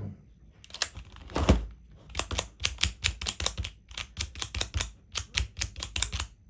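Plastic tiles of a Rubik's Cube sliding puzzle clicking as they are slid and snapped into place during fast repeated moves: a couple of separate clicks, then a quick irregular run of about three or four clicks a second.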